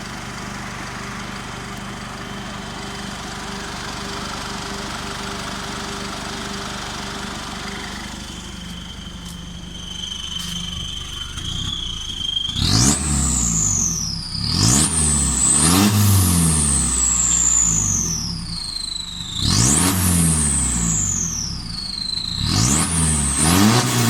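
Turbocharged vehicle engine, a stock turbo modified for a loud whistle, idling and then revved several times. Each rev brings a sharp rising turbo whistle that spools down slowly, with a faint steady whistle at idle just before.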